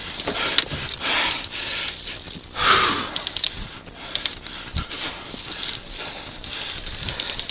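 A player breathing hard close to a head-worn camera's microphone, with rustling and scattered clicks of gear and movement; one louder breath comes about two and a half seconds in.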